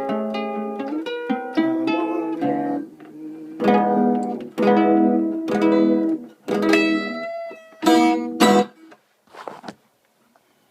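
Guitar strumming the closing chords of a song, the later chords struck singly about a second apart and left to ring, stopping just before the end.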